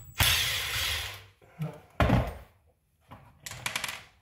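Handling noises from working on an RC car on a bench: a rustle lasting about a second, a thunk about two seconds in, then a quick rattle of clicks near the end.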